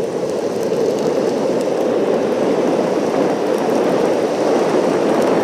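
Ride1Up electric skateboard rolling along asphalt at speed: a steady rushing noise from its soft urethane wheels on the road.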